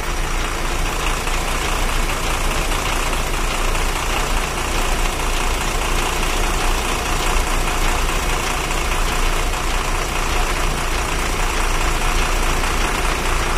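Lorry engine idling steadily.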